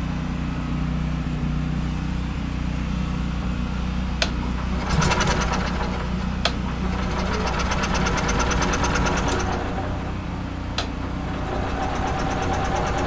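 Generator engine running steadily, with a stretch of fast, even ticking in the middle and a few sharp clicks. The owner believes it is running only on fuel poured down the carburetor, with the electric fuel pump not keeping up fuel pressure.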